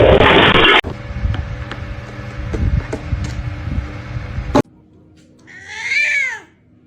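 A domestic cat gives a single meow near the end, rising and then falling in pitch over about a second.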